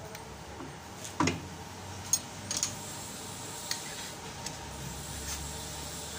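A faint steady hum with a handful of short, sharp clicks and taps at irregular moments, the loudest a little over a second in and about two seconds in.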